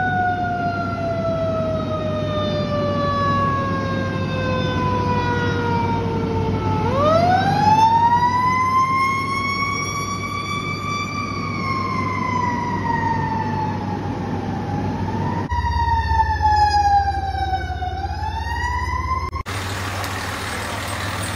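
Fire truck sirens wailing. One siren falls slowly in pitch for about seven seconds, rises, then slowly falls again. After a cut about 15 seconds in, a second fire engine's siren falls and rises. In the last two seconds there is no siren, only a fire rescue truck's engine and road noise as it passes.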